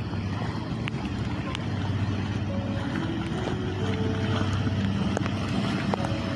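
A boat engine running steadily with a low hum.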